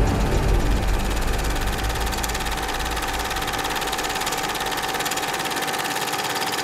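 Film projector running sound effect, a steady rapid clatter with a constant whir, as the closing music fades out in the first two seconds.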